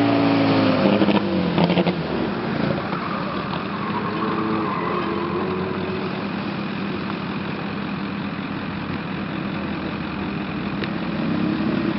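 Turbocharged drift car's engine at full revs, falling in pitch within the first two seconds as the throttle eases, then running lower and steadier while the car slides around the track.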